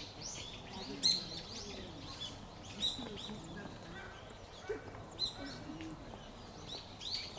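Small birds chirping: many short, high calls, one after another, the sharpest about a second in.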